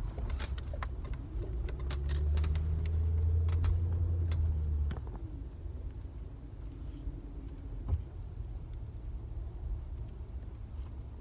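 Car engine and road noise from inside the cabin as the car pulls in. The engine note rises and gets louder from about two seconds in, then drops off around five seconds. There are a few light clicks in the first two seconds and a single knock near eight seconds.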